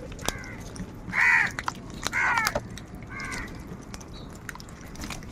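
Crows cawing: about four short caws roughly a second apart, the loudest two about a second and two seconds in, with a few sharp clicks between them.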